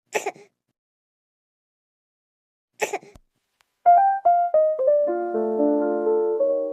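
Piano music starts about four seconds in: a few single notes, then held chords. Before it come two brief, sharp bursts of sound, one right at the start and one about three seconds in.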